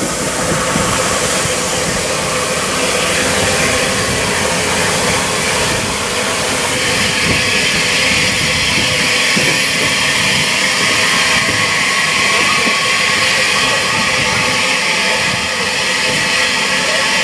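Unrebuilt Bulleid West Country class steam locomotive 34007 'Wadebridge' with steam hissing loudly and steadily from around its cylinders.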